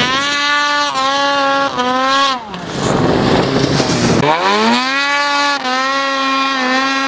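Ski-Doo 600 snowmobile engine revving hard under throttle, its pitch rising and falling several times, dropping away for a moment near the middle, then climbing sharply and holding at high revs.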